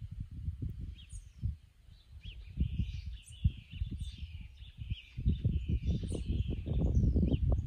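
Birds chirping with short, repeated high calls over an irregular low rumble of wind on the microphone, which grows stronger in the second half.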